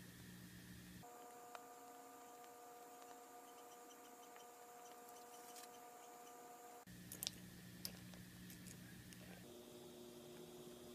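Near silence: faint room tone with a steady low hum that shifts at each edit, and a few small, sharp clicks about seven seconds in.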